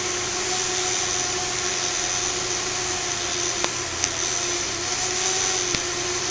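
Small fischertechnik electric motors spinning propellers at high speed: a steady whir with a constant hum under it, and a few faint ticks in the middle.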